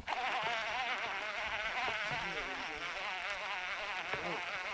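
A steady outdoor chorus of insects buzzing, many overlapping warbling tones that wobble several times a second, with a sharp click at the very start.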